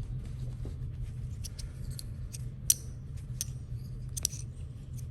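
Small sharp clicks and taps of fidget slider parts being handled while a stuck piece is worked loose, irregular and a few per second, over a steady low hum.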